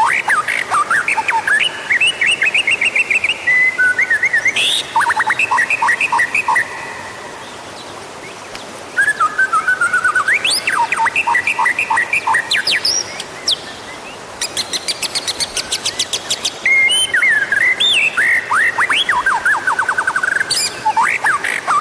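White-rumped shama (murai batu) singing: bursts of varied whistled phrases and rapid trills, with short pauses of a second or two between them and a fast, buzzy rattle about two-thirds of the way through. It is the kind of song recording played as a lure to set captive shamas singing.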